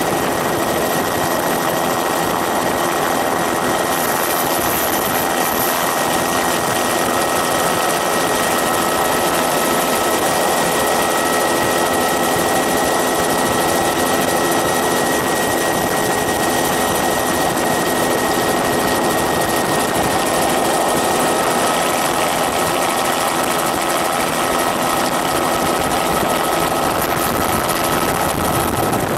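Multirotor drone's motors and propellers running steadily in flight, a constant whine made of several held tones over a rushing hiss, with little deep bass.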